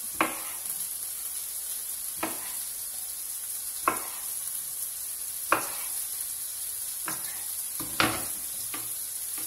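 Knife cutting baby Romano tomatoes in half on a wooden cutting board, a sharp tap each time the blade meets the board, about six taps a second or two apart. Under them is the steady sizzle of chicken, zucchini and onion frying in oil in a pan.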